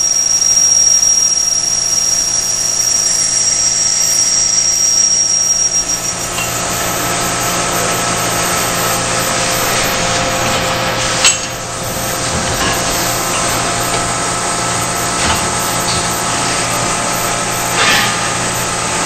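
Bardons & Oliver 34 automatic tube cut-off lathe running and machining a spinning stainless steel tube, a steady mechanical hum with a high whine that stops about six seconds in. A sharp metallic knock comes about eleven seconds in, and two lighter knocks follow later.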